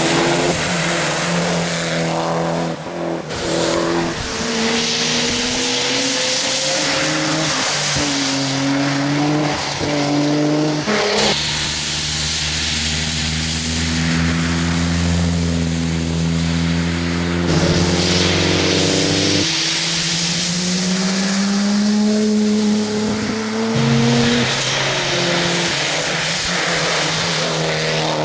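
Several rally cars, including Mitsubishi Lancer Evolutions, driven hard through tight bends one after another. Their turbocharged four-cylinder engines rev, climbing in pitch and dropping back at each gear change, over a steady hiss of tyres on the wet road.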